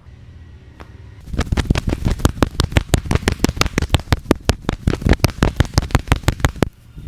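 Percussive massage: a barber's hands slapping rapidly on a customer, a fast even run of sharp loud claps, about seven a second, starting about a second in and stopping shortly before the end.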